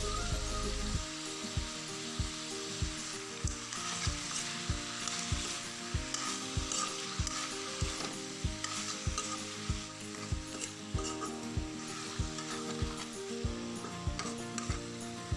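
Metal ladle stirring chicken and onions frying in a wok, knocking and scraping against the pan about twice a second, over a steady sizzle. The stirring starts about a second in.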